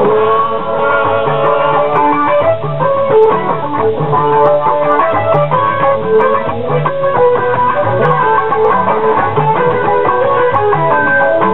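Live fuji band music: a guitar plays a melody of held notes over a repeating bass guitar line.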